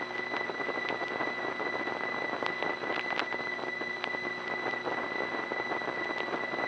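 Open telephone line into a No. 5 Crossbar central office: its distinctive steady high-pitched whine, the office's noise signature, over line hiss, with a scattered pitter-patter of clicks from connections being made in the office at a busy time of day.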